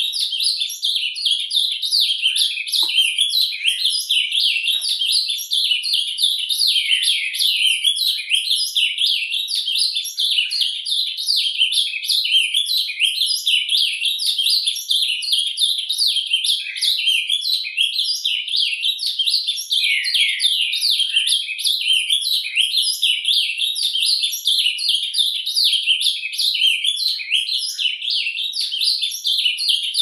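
Ultramarine grosbeak (azulão) singing its surdina song: a fast, unbroken stream of twittering, warbling notes with no pauses.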